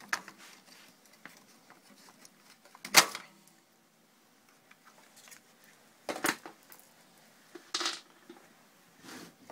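Workshop handling noises as tools and parts are moved about a partly dismantled generator on a wooden bench: a handful of separate clicks and knocks, the sharpest about three seconds in.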